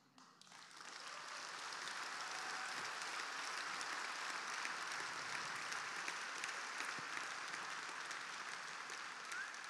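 A large seated audience applauding: many hands clapping in a dense, even patter. It swells in the first second, holds steady, and thins out near the end.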